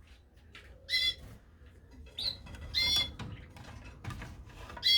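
Caged canaries giving short, clear call notes, three times about two seconds apart, with a few faint clicks between them.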